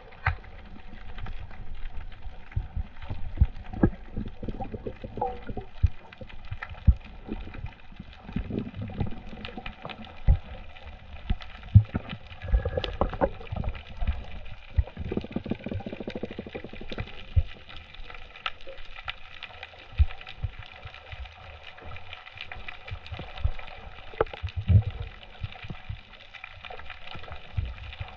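Underwater sound picked up by an action camera in its housing: irregular muffled thumps and scattered sharp clicks from water movement and handling, over a faint steady hum.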